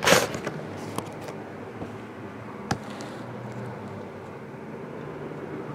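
Cardboard baseball-card hobby box being handled and slid across a table: a brief scraping rustle at the start, then a few light clicks and taps over a steady low hum.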